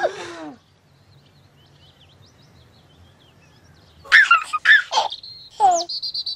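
A voice trails off, then a few seconds of faint birdsong over a low hum; about four seconds in, a baby giggles and babbles loudly with swooping squeals, ending on a long high note.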